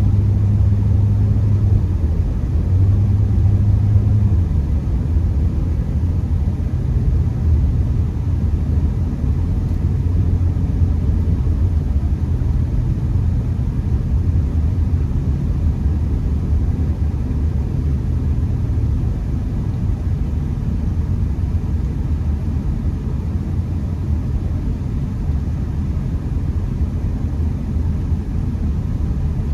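Honda Accord driving on a snowy road, heard from inside the car: a steady low drone of engine and tyre rumble, the engine hum a little stronger in the first few seconds.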